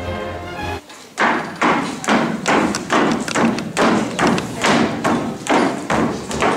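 Footsteps of several people marching in step across a wooden stage floor, thudding together about twice a second. Orchestral music ends about a second in, just before the steps begin.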